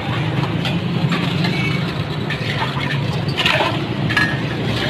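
Glass mugs clinking against each other and a steel jug as a drink is poured into a glass mug, a few sharp clinks over a steady low hum of road traffic.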